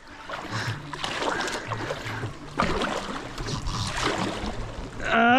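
Kayak being paddled through shallow water: uneven paddle and water noise around the hull. A man's short shout near the end.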